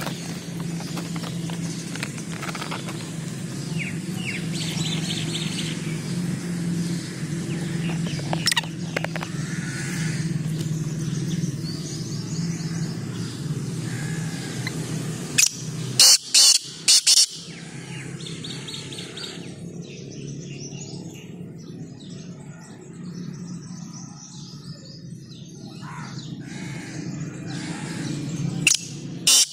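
Black francolin calling: a loud call of about four quick notes, once about halfway through and again at the very end, over faint chirping of small birds and a steady low hum.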